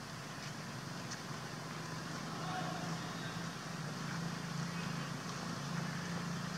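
A motor running steadily at a low, constant hum, like an engine idling.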